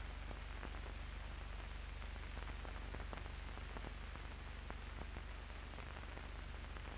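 Old film soundtrack noise: a steady hiss and low hum with scattered faint crackles and clicks.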